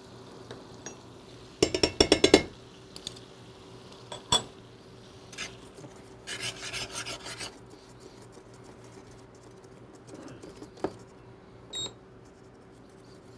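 Metal spoon stirring and scraping in a stainless-steel sauté pan as butter is worked into the pan sauce. A quick run of clinks comes about two seconds in, then a single knock, about a second of scraping around six seconds in, and a few light taps near the end.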